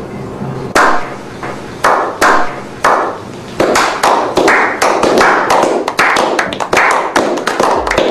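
A small group slow-clapping: single loud claps half a second to a second apart, quickening into steady applause from about three and a half seconds in.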